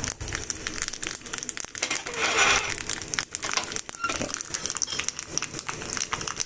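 Mustard seeds, cumin and a dried red chilli sizzling in hot oil in a small pan, the mustard seeds crackling and popping. The sizzle swells briefly about two and a half seconds in.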